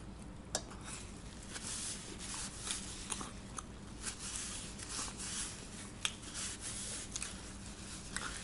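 A person chewing a mouthful of pizza: faint, irregular wet mouth sounds with small clicks.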